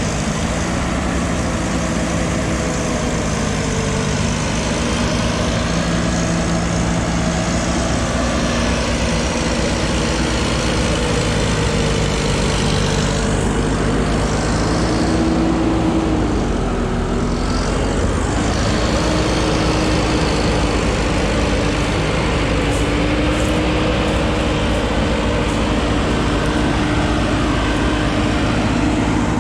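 Heavy diesel machinery engines running steadily, their pitch shifting slowly up and down as they work.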